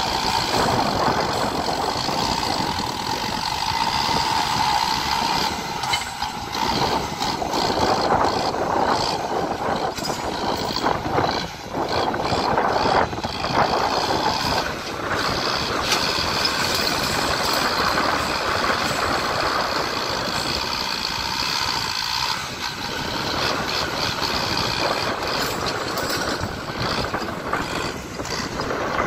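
Kubota farm tractor's diesel engine running steadily under load as it drags a disc harrow and pushes soil with its front blade.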